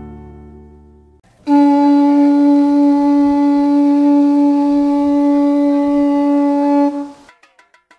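The last chord of a guitar-accompanied song fades away. Then, about a second and a half in, a single horn-like wind-instrument note starts, is held at one steady pitch for nearly six seconds, and stops.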